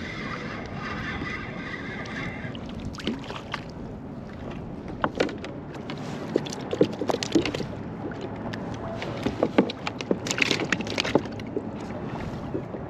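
A fishing reel winding in briefly at the start, then a scatter of sharp clicks, knocks and rattles as a caught white perch is handled and unhooked on a plastic kayak, over steady water and wind noise.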